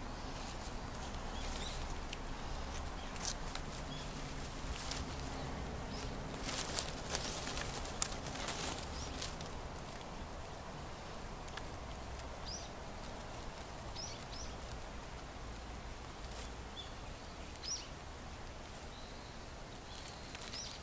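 Outdoor garden ambience with a low steady rumble. A cluster of soft rustles and clicks comes about six to nine seconds in, as the cat's head brushes the carnations. A few short, high bird chirps come in the second half.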